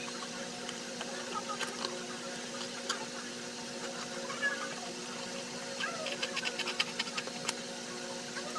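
Utility cutter blade cutting a slot in a cardboard box: scattered scraping clicks, with a quick run of about eight clicks a second just past the middle. A steady hum runs underneath.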